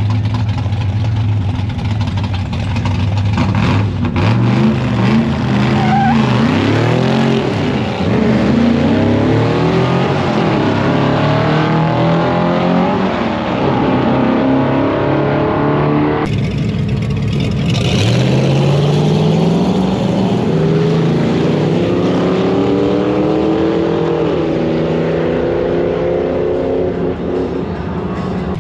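A car engine idling, then revving and accelerating hard, its pitch climbing and dropping back at each gear change. After an abrupt cut about 16 seconds in, an engine pulls hard again in one long rising climb, typical of a drag-strip pass.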